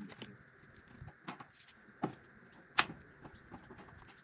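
Hand work on sheet-metal coping: a few sharp, irregular clicks and taps, the loudest near three seconds in.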